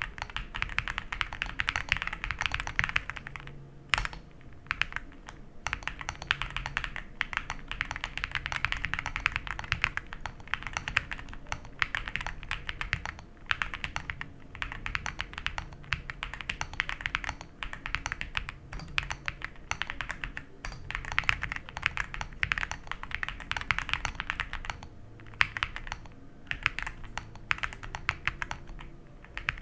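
Fast, continuous typing on a mechanical keyboard with stock Aflion Carrot tactile switches on an aluminium plate, with all foams installed, giving a dense clatter of key presses broken by a few brief pauses.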